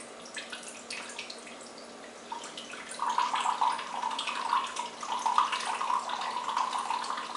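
Soy sauce poured from a bottle into a glass measuring cup: at first scattered drips, then a steady stream from about three seconds in.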